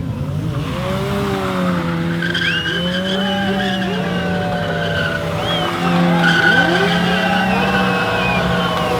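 Motorcycle burnout: the spinning rear tyre squeals in wavering, gliding tones over the engine held at steady high revs, getting louder about six seconds in.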